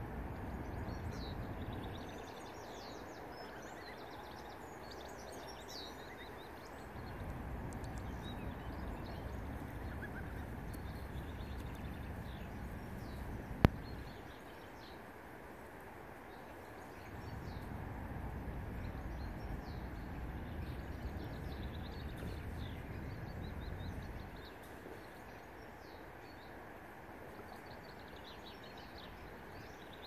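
Outdoor lakeside ambience with small birds chirping and twittering throughout, over a low rumble that comes and goes in long stretches. A single sharp click sounds about halfway through.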